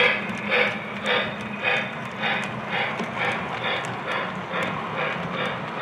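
Electronic steam chuffing from the sound system of a Lionel LionChief Hogwarts Express O-gauge locomotive as it runs, a regular chuff a little under twice a second. Under it is a steady hum of the train rolling on the track.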